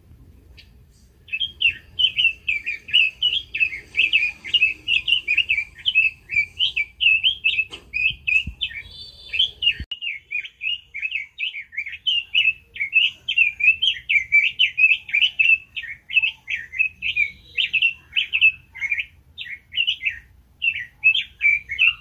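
Red-billed leiothrix (Pekin robin) singing a fast, continuous warbling song of quick rising and falling notes, starting about a second in.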